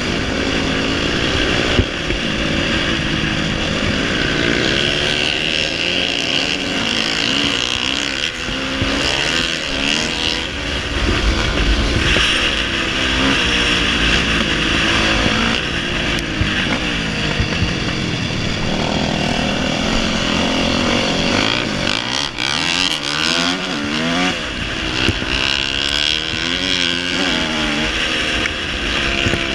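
Dirt bike engine revving up and down over and over as the rider accelerates, shifts and rolls off through the corners, over a steady rush of wind noise.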